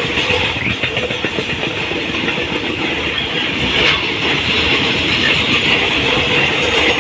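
Freight train rolling past at close range, its wheels running steadily on the rails with a constant hum underneath.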